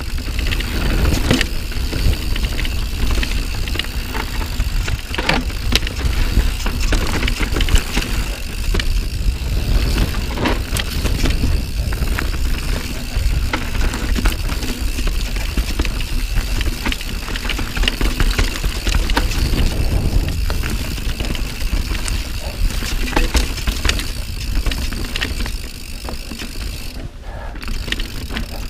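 Santa Cruz Nomad carbon full-suspension mountain bike descending a dirt singletrack: a continuous rumble of tyres over dirt and roots, broken by frequent short clicks and knocks of chain and bike over bumps.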